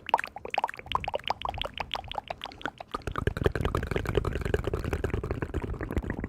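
Liquid sounds: a quick run of small pitched plops and drips, giving way about halfway through to a denser, lower bubbling and gurgling.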